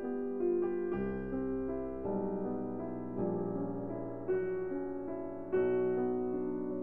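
Slow, gentle piano music: soft chords over a low bass, a new chord struck every second or so and left to ring.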